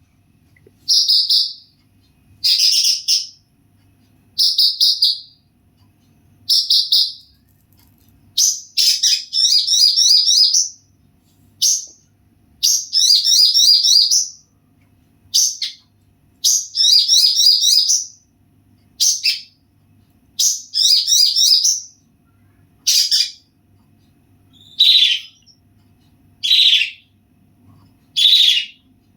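A songbird singing in short, loud, high-pitched phrases about every two seconds, several of them drawn out into rapid chattering runs lasting a second or two.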